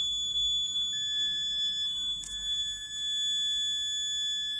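Battery-powered electronic buzzer sounding a steady high-pitched tone, fed through three 1 kΩ resistors in parallel so that it is at its loudest. A brief click about two seconds in.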